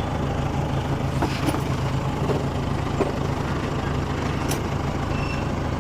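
A motor vehicle's engine running steadily, a low even hum with road-type noise over it and a few faint ticks.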